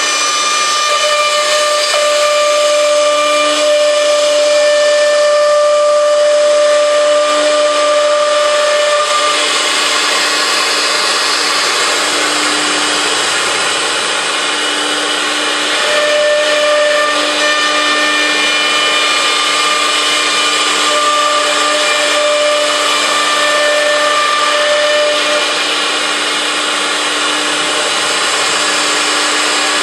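Four-spindle CNC router cutting grooves into a particleboard panel: the spindle runs with a steady whine over a loud, rushing cutting noise. A higher whine tone fades in and out, for the first third and again in the second half.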